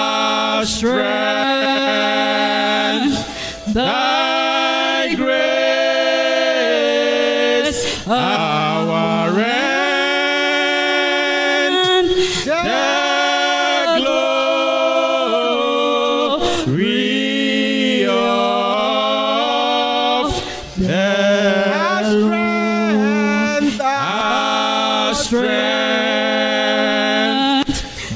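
A woman singing a hymn unaccompanied into a handheld microphone, in slow held notes with brief breaths between phrases.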